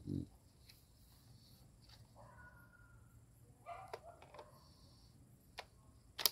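Faint clicks of a Crosman AK-1 BB rifle and its magazine being handled, ending with one sharp click. A brief faint squeak sounds about two seconds in.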